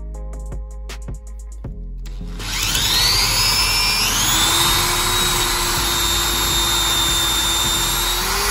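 Electric drill with a twist bit boring into the end of a chipboard block. The motor spins up about two seconds in with a rising whine, steps up in speed a second or so later, and then runs steadily under load.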